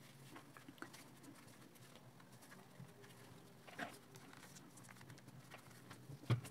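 Faint handling sounds of a crochet hook being worked through thick t-shirt yarn: scattered small taps and rustles, with a slightly louder click about four seconds in and another just before the end.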